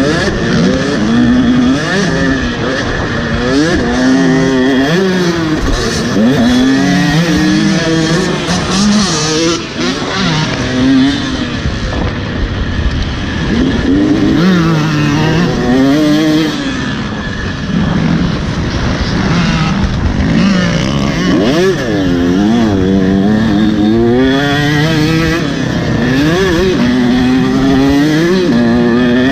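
Motocross dirt bike engine revving hard and dropping back again and again as the rider opens and closes the throttle and shifts through the gears around the track.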